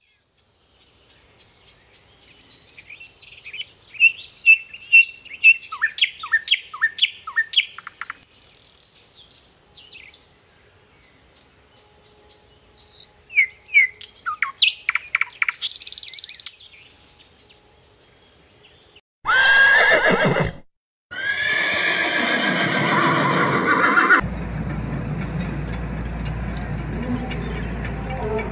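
Birds chirping in two bursts of quick, repeated high notes with fast downward sweeps. About two-thirds of the way through come two loud, harsh calls with a wavering pitch. A steady low background noise with a hum follows.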